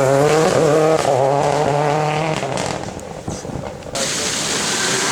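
Renault Clio R3T rally car's turbocharged four-cylinder engine held at a high, steady pitch as the car goes by, then fading away with a few sharp cracks. About four seconds in, a loud rushing noise cuts in abruptly.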